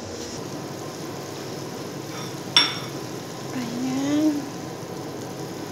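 Meat sizzling as it fries in a pan of dark, thick sauce, a steady sizzle, with one sharp clink about two and a half seconds in.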